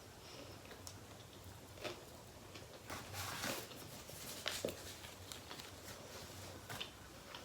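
Quiet eating sounds: chewing and mouth noises with scattered soft clicks and brief rustles, the loudest a little after the middle.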